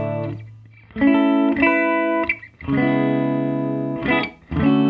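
Electric guitar played clean and dry, with the delay/reverb pedal bypassed, through a Quilter 101 Mini amp and a closed-back 1x12 cabinet. A held chord fades out, then a run of strummed chords each rings on, with short gaps between them and a brief stab just before the last.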